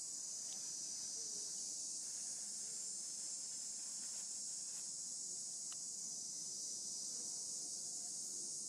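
A steady, high-pitched chorus of insects shrilling without a break, with a couple of faint clicks.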